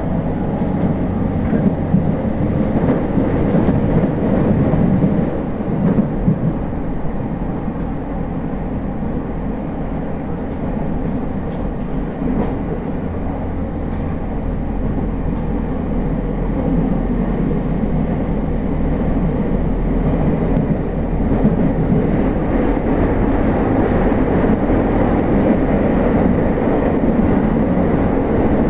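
Running sound heard inside a Tokyo Waterfront Area Rapid Transit 70-000 series car with its original, unrenewed VVVF equipment: a steady rumble of wheels on rail and running gear. It eases a little about eight seconds in and builds again from about sixteen seconds.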